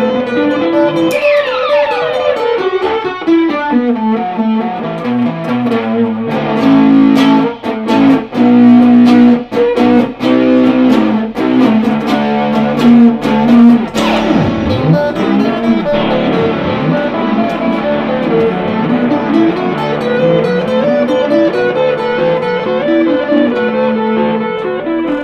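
Electric guitar played through an Electro-Harmonix Super Ego+ synth/freeze effect: held, layered notes ringing under a run of sharply picked notes. A pitch glide falls about a second in, and about fourteen seconds in the sound dives steeply in pitch and swoops back up.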